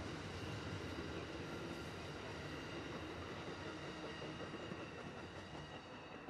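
Amtrak passenger cars rolling past on the rails, a steady rumble of wheels on track with faint high ringing tones, fading slowly as the rear of the train moves away.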